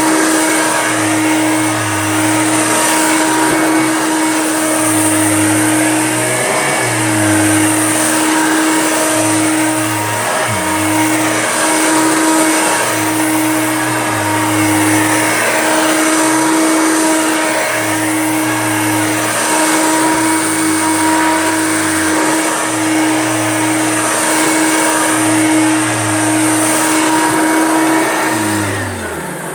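Hoover Junior upright vacuum cleaner running steadily over a thick faux fur rug, its drone pulsing with back-and-forth strokes about every two seconds. Near the end it is switched off and the motor winds down.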